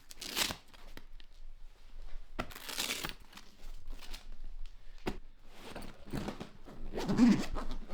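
Irregular rustling and crinkling from gear being handled, with a few sharp clicks and knocks.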